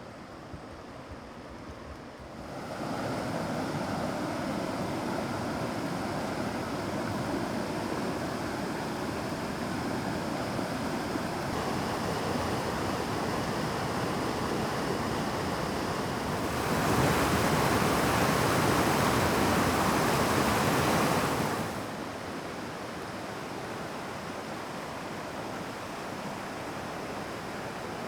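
Mountain stream water and a waterfall rushing steadily. The sound gets louder a couple of seconds in, swells louder and hissier for about five seconds past the middle, then drops back to a softer rush.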